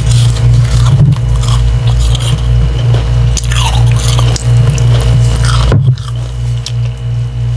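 Slushy ice chunks of water-dipped humidifier frost being bitten and chewed: a few soft, wet crunches a second or two apart, over a loud steady low hum and background music.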